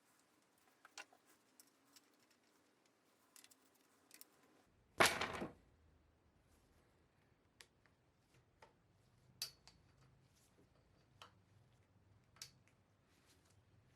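Scattered light metallic clicks and taps of tools and parts being handled, one every second or two, with one louder clatter lasting about half a second about five seconds in.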